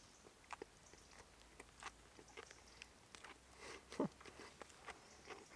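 A person chewing a mouthful of burger with a crunchy onion ring: faint, irregular crunches, the loudest about four seconds in.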